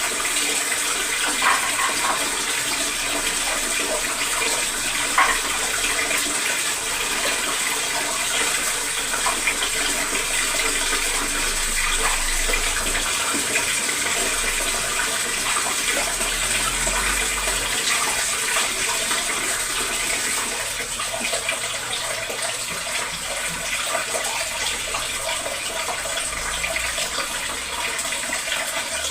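Water running steadily from a kitchen tap into a sink, with a few light knocks.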